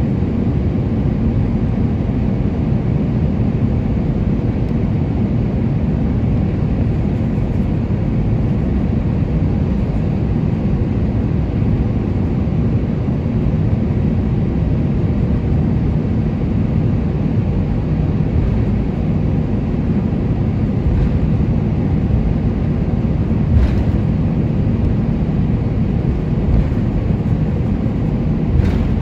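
Airbus A320-200 taxiing, heard from inside the cabin: a steady low rumble of the engines at low thrust and the wheels rolling on the taxiway. A couple of faint clicks near the end.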